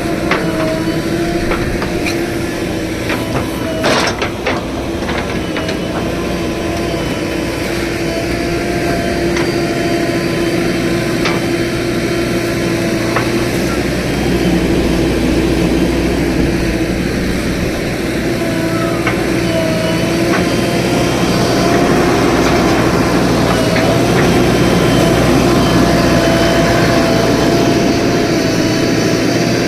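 JCB 3DX backhoe loader's diesel engine running steadily under load, with a few sharp knocks about four seconds in.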